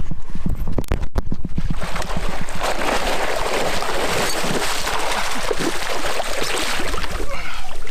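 A hooked muskie thrashing and splashing at the surface right beside the boat, a heavy run of churning water that is loudest through the middle.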